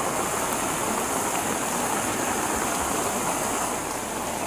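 Muddy storm runoff rushing steadily down a ditch in a heavy downpour: a continuous rush of flowing water with rain hiss over it.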